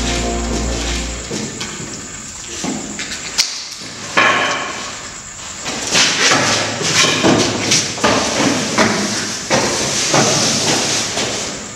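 Sounds of a violent struggle. A sharp knock is followed by a run of rough thuds and scuffling, about one or two blows a second. A low music drone cuts out about a second in.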